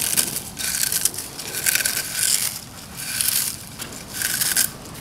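Ridged Lay's potato chips crushed into crumbs by hand on a plate: crisp crunching and crackling in about five bursts, roughly a second apart.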